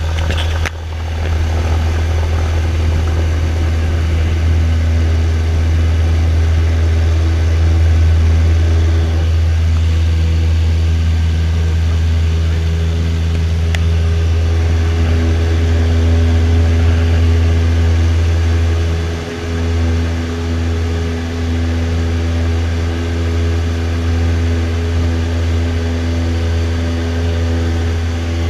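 Single-engine light airplane's piston engine and propeller at full takeoff power, heard from inside the cabin as a loud, steady drone. It comes up to power about a second in and holds through the takeoff roll and lift-off, with a brief dip partway through.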